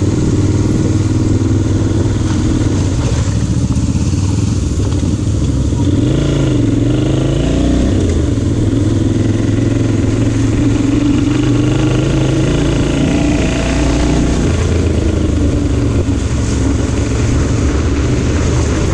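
Kasinski Comet 250 GT motorcycle's 250 cc V-twin engine running steadily under way, its pitch dipping and then climbing again between about six and eight seconds in as the throttle is eased off and reopened.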